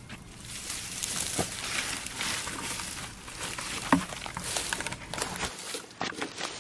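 Barefoot footsteps through dry undergrowth: dead leaves and twigs rustling and crackling underfoot and against the legs. The sharpest, loudest crunch comes about four seconds in, as a foot lands close by.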